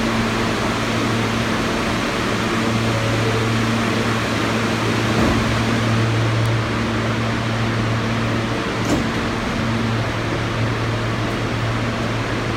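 New York subway train standing in the station, its air-conditioning and onboard equipment giving a steady hum under a rush of air.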